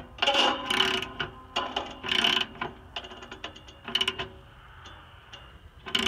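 Socket ratchet wrench clicking in quick runs as it cranks the blade tensioner on a Wood-Mizer LX250 band sawmill, tensioning the band blade. The clicking comes in several bursts and thins to a few faint clicks after about four seconds.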